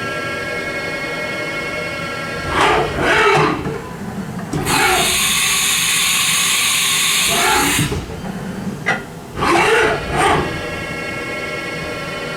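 Haas VF-2D vertical machining center with a 15,000 rpm spindle running a program, with a steady machine whine throughout. Rising and falling whines come about two and a half seconds in and again about nine seconds in. Between them is a loud hiss of about three seconds that starts and stops abruptly.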